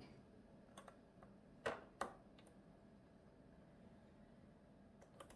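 Near silence: room tone with a few faint, short clicks, the two clearest a quarter second apart a little under two seconds in.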